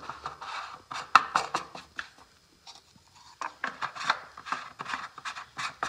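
Plastic screw caps being twisted back onto the mower's plastic hydraulic oil reservoirs, giving a run of irregular clicks and rubbing scrapes with a quieter pause in the middle.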